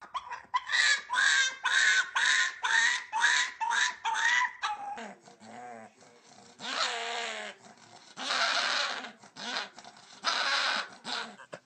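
Dog making unusual vocal sounds. First comes a quick run of short calls, each rising in pitch, about three a second. Then there is a lower, drawn-out whine and three longer, rougher calls a second or two apart.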